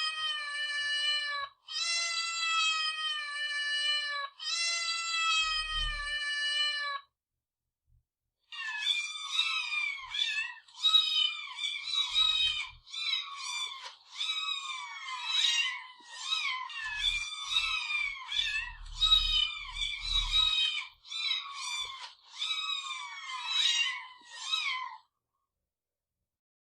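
Cat meowing: three long, drawn-out meows that fall slightly in pitch, then after a short pause a fast run of short meows, about two a second, for some sixteen seconds before stopping.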